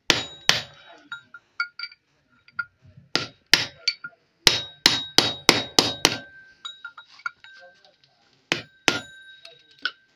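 Hammer tapping a cam gear down onto the keyed camshaft of a 190-model engine. There are about a dozen sharp metal strikes in groups, including a quick run of about seven halfway through, each leaving a short metallic ring. The gear is being driven home onto the shaft until it seats.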